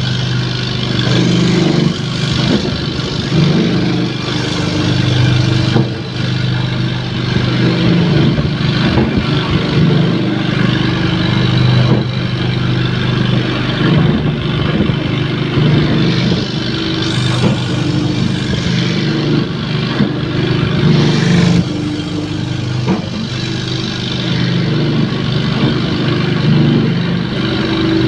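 Wood-grinding machine running steadily with a continuous motor drone and grinding noise.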